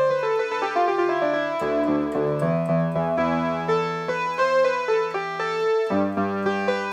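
Roland JX-3P analogue polyphonic synthesizer, fitted with the Kiwi-3P upgrade, playing its Electric Piano 2 preset: held chords under a moving line of single notes, with a new, lower chord coming in near the end.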